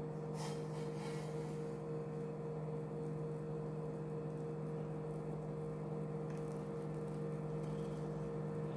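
A steady low hum made of several fixed tones, unchanging throughout.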